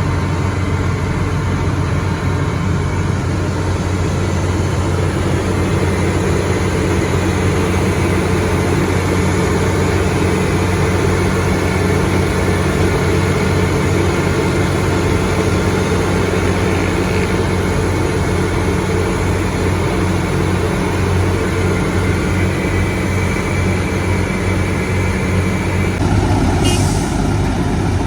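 Heavy diesel engine of road-construction machinery running steadily. Its sound changes abruptly about 26 seconds in, and a brief hiss follows near the end.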